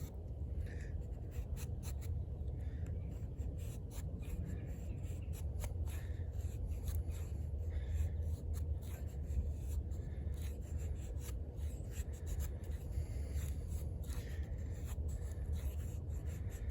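Eafengrow EF-143 fixed-blade knife scraping and shaving wood: an irregular run of short scratchy strokes over a steady low rumble.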